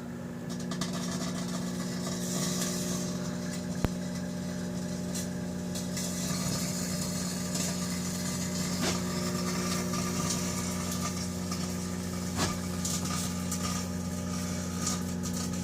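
Microwave oven running with a steady electrical hum while the cut-up aluminium can inside arcs, giving irregular crackles and snaps. One sharp snap comes about four seconds in.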